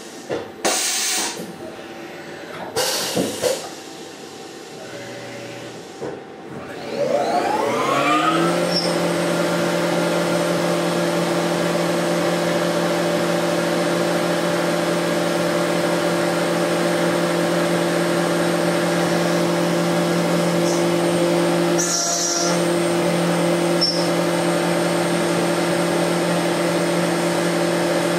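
Tormach 1100MX CNC mill: a few clicks and knocks, then about seven seconds in the spindle spins up with a rising whine and settles into a steady run. An end mill is boring a hole in the part under flood coolant, with a spraying hiss.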